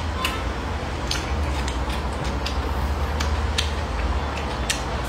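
Close-miked eating: irregular sharp clicks and smacks of chewing and of chopsticks picking up food from a plate, over a steady low hum.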